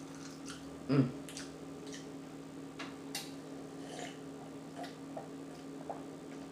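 Mouth smacking and chewing up close: irregular short wet clicks, a few a second, with one brief louder low sound about a second in, over a faint steady background hum.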